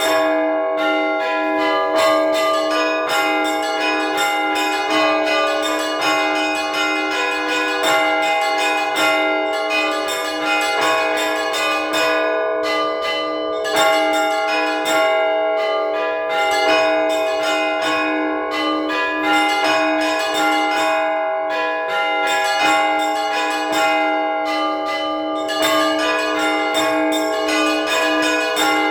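Russian Orthodox church bells rung by hand from the belfry: several bells struck in a rapid, continuous pattern, their tones ringing on and overlapping. It is a festive Bright Week peal calling the faithful to the evening service.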